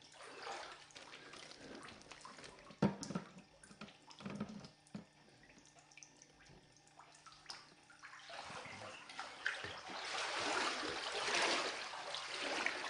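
Floodwater splashing and sloshing, getting louder from about eight seconds in, with scattered light knocks and clicks before that.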